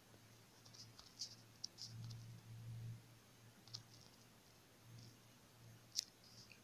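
Faint, scattered clicks of typing on a phone's touchscreen keyboard, about eight taps spread irregularly, the sharpest one about six seconds in, over a faint low hum.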